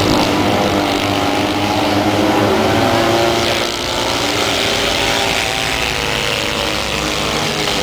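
Autocross buggies' engines running hard as they race round a dirt track, a steady engine note with shifting pitch over loud noise.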